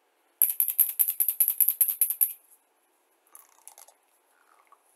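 A hard object rattling in a rapid, even shake, about nine strokes a second for about two seconds, then a few faint clicks and taps.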